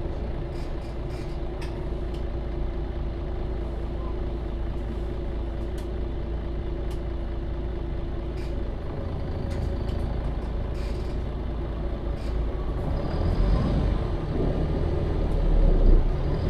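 MAN Lion's City city bus running, with a steady low drone of engine and drivetrain and a steady whine that stops about nine seconds in. There are faint scattered rattling clicks, and the low rumble swells near the end.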